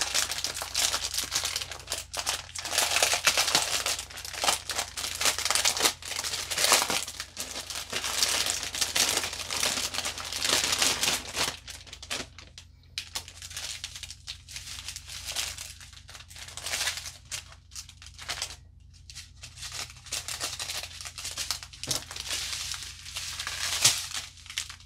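Clear plastic packaging crinkling in irregular bursts as a wrapped roll of small bagged diamond-painting drills is unwrapped by hand.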